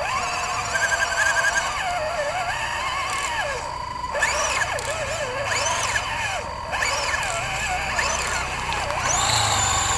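MN128 RC off-road car's small electric motor and gearbox whining as it drives, the pitch rising and falling continuously with the throttle.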